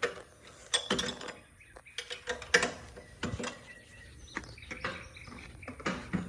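Irregular metallic clicks and clinks of a wrench working the bolts as the go-kart's engine mount is tightened down to tension the drive chain.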